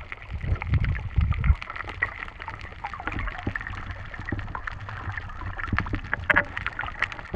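Muffled underwater ambience picked up by a submerged camera: a low rumble, heavier in the first second and a half, with many scattered sharp clicks and crackles.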